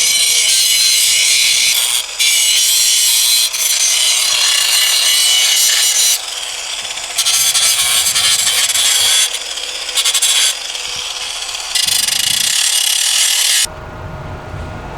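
A power tool grinding the rusted steel bodywork of a Mazda MX-5, a loud, harsh hiss in about six passes of one to three seconds with short easings in between, stopping about a second before the end.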